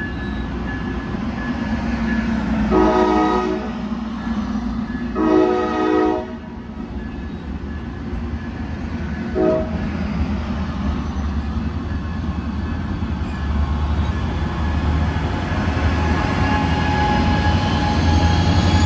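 COASTER bilevel commuter coaches rumbling past a grade crossing, while the train's horn sounds two long blasts, about three and five seconds in, and a short one near ten seconds. Near the end a rising whine joins the rumble as the Siemens Charger SC-44 locomotive pushing at the rear comes by.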